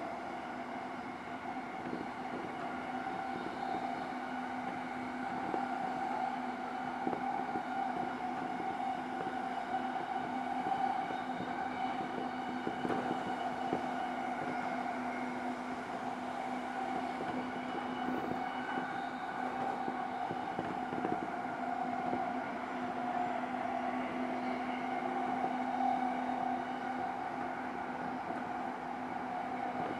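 JR East E233-0 series electric train running at a steady speed, heard from inside the car: a constant motor and gear hum with two steady tones over the rumble of wheels on rail, with faint scattered clicks.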